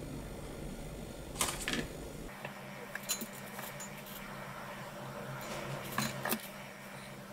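Handling noises of small parts on a work mat: a few sharp clicks and taps, first from a plastic-sleeved sheet, then from a small metal cup and a squeeze bottle of glue. A faint steady hum sits underneath.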